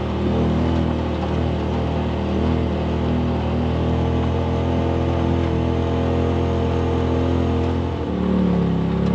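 Side-by-side UTV engine running steadily under way. About eight seconds in its pitch wavers down and up.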